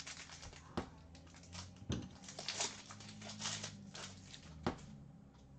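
Foil wrapper of a hockey card pack crinkling and tearing as it is ripped open by hand, with a few sharp clicks along the way.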